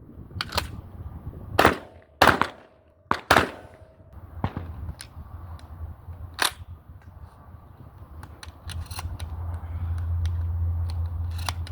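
Gunshots: about five sharp shots in quick succession in the first three and a half seconds, one more about six and a half seconds in, then softer clicks and knocks over a low rumble that builds toward the end.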